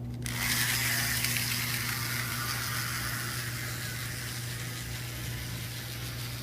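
HO-scale model locomotive running on the track, its small electric motor and wheels making a steady whirring hiss that starts suddenly about a quarter second in and eases slightly, over a low steady hum.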